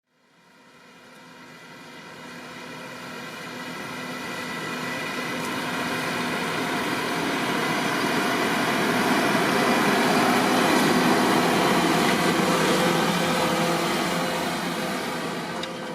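Fendt 724 Vario tractor's six-cylinder diesel engine running steadily while ploughing with a five-furrow Lemken plough. It rises out of silence, grows steadily louder as it approaches, is loudest about two-thirds through, then eases slightly.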